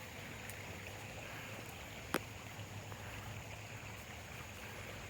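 Faint, steady outdoor background noise, with a single sharp click a little over two seconds in.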